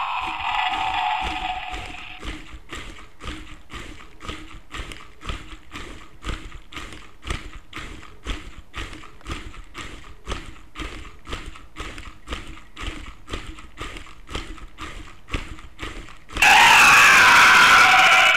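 Sound-activated wooden Stegosaurus automaton walking: its small battery motor hums under a steady clacking of its gears and wooden feet on a wooden floor, about two to three clacks a second. Its built-in roar sound effect plays at the start, fading over about two seconds, and plays again loudly near the end.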